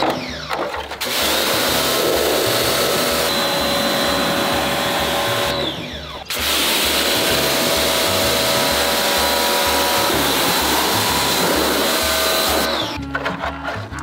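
Pressure-washer jet spraying the plastic blower fan wheel of a ceiling air conditioner: a steady hiss of water with a faint whining tone. It breaks off briefly about half a second in and again around six seconds, then stops shortly before the end.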